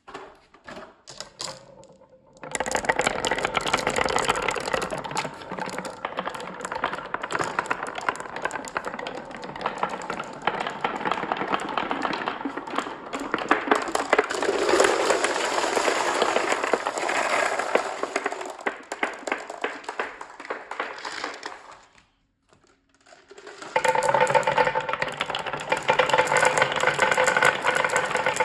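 Many marbles rolling and clattering down a marble run, a dense rapid rattle of clicks. It starts a couple of seconds in, breaks off for about two seconds near the end, then starts again.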